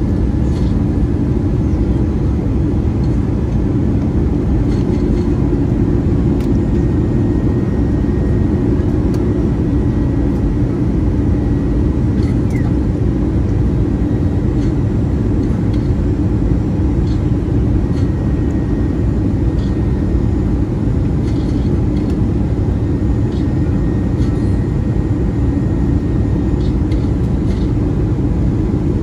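Steady cabin noise inside an Airbus A320-214 with CFM56 engines: a deep, even rumble of engines and airflow, with a faint steady high whine joining in about seven seconds in and a few light rattles.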